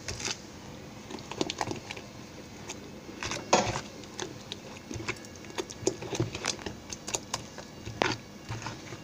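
Steel spoon stirring thick semolina vegetable batter in a plastic bowl: irregular scrapes and clicks of the spoon against the bowl, with a louder knock about three and a half seconds in and another near the end.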